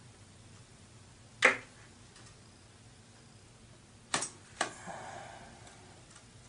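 Memory modules being handled on a Mac Pro memory board. One loud plastic-and-metal click comes about 1.5 s in, two quicker clicks follow a little after 4 s, and then a brief scraping rustle.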